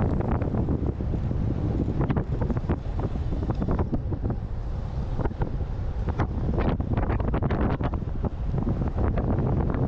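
Wind buffeting the action camera's microphone at speed on a road-bike descent: a steady low rumble with scattered short crackles.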